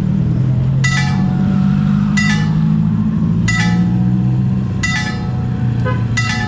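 Railway level-crossing warning bell striking five times at an even pace, about one ring every 1.3 seconds. Underneath runs the low steady drone of a road vehicle's engine at the crossing.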